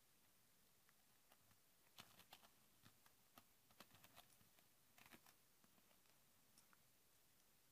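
Faint small clicks and taps of a precision screwdriver set's metal handle and steel bits being handled and picked from their case, in a scattered run through the middle of an otherwise near-silent stretch.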